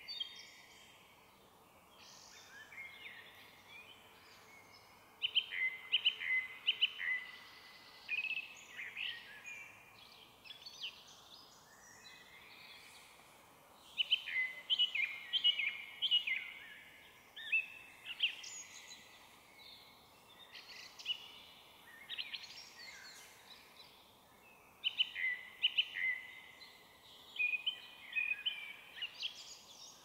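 Song thrush singing loud phrases of short notes, each note repeated several times, in bursts every few seconds, over fainter song of other small birds.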